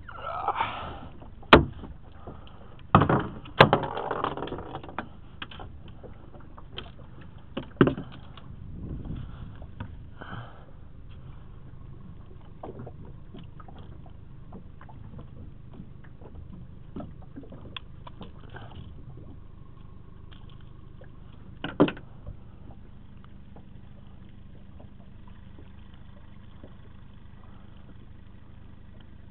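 Knocks and clunks of a landing net and a walleye being handled in a boat while the lure is worked free. They are clustered in the first eight seconds, with one more a little after twenty seconds, over a low steady hum.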